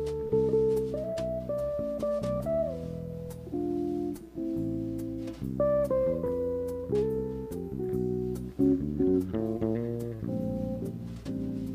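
Jazz trio playing a slow ballad: chords and a melody line over a steady bass line.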